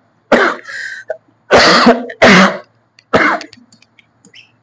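A man coughing and clearing his throat, with about four loud coughs over the first three and a half seconds. Near the end come faint ticks of a marker writing on a board.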